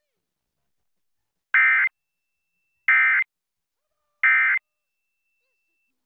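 Emergency Alert System end-of-message code: three short, identical bursts of screechy digital data tones, about a second and a half apart, starting about a second and a half in. They mark the end of the alert, closing the required monthly test.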